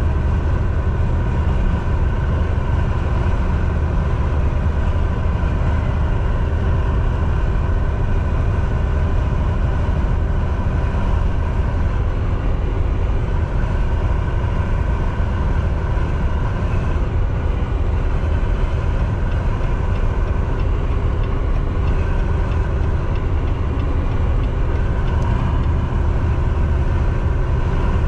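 Semi truck running at steady highway speed: a constant low engine drone with road noise, and a few faint steady tones riding above it.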